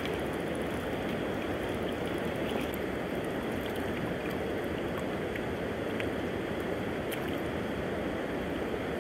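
River water flowing steadily past in a continuous even rush, with a few faint clicks.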